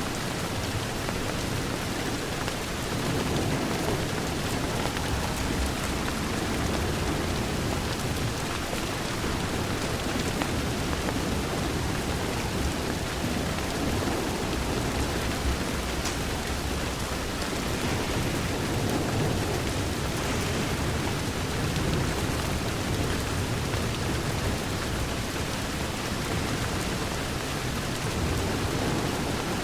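Steady rain falling against a window: a continuous hiss with a low, slowly swelling rumble underneath and a few faint clicks.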